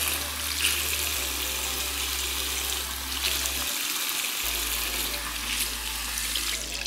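Water running steadily from a salon wash-basin tap or spray hose during a hair wash, dropping away at the very end.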